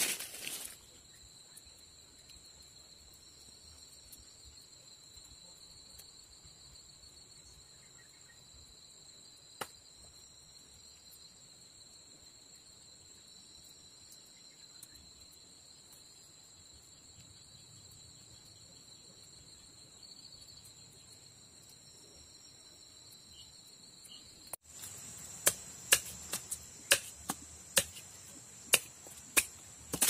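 A steady insect chorus, shrill and high on a couple of pitches. About 25 seconds in, the ambience changes and a run of sharp knocks follows, roughly one or two a second.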